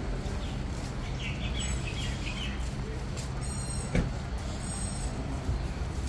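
Street ambience: a steady rumble of road traffic, with high chirps of birds over it and a single sharp knock about four seconds in.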